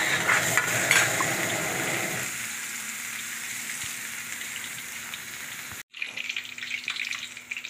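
Chopped onions sizzling in hot oil in a steel frying pan, stirred with a steel ladle. The sizzle is strongest for the first two seconds, then settles. After a brief cut-out near the end, the ladle clinks and scrapes against the pan.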